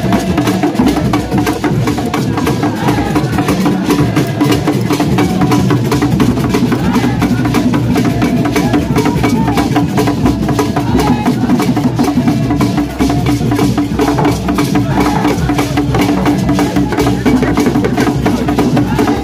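Several traditional barrel hand drums played together in a fast, steady rhythm to accompany a shrine dance, with crowd voices over the drumming.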